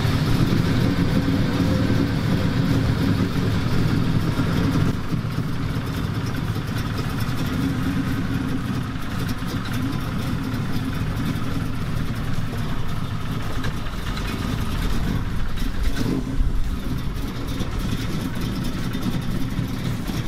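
First-generation Chevrolet Camaro convertible's engine running with a loud, steady low rumble.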